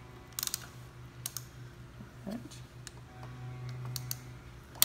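Ratcheting torque wrench with a 6 mm hex bit snugging the M8 screws of a motorcycle handlebar riser. A quick run of ratchet clicks comes about half a second in, then single clicks spaced through the rest, the sharpest one near the end.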